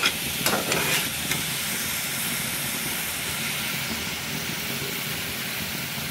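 Minced mutton sizzling steadily as it browns in a frying pan, with a few scrapes of a steel spatula against the pan in the first second or so.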